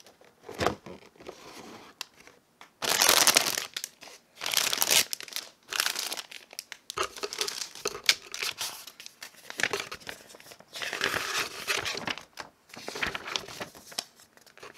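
Cardboard model-kit box and its paper instruction sheet being handled: irregular rustling, sliding and crinkling of card and paper in short bursts with brief pauses between.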